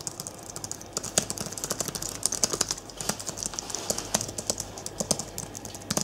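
Fast typing on a Logitech MX Keys keyboard: a rapid, irregular run of light clicks from its low-profile scissor-switch keys, several keystrokes a second.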